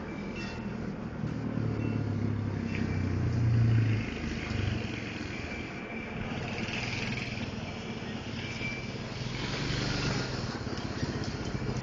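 Four-wheeler ATV engine running as it rides around, its steady drone swelling about three to four seconds in and again near the end as it comes closer. A hiss rises and falls in the middle.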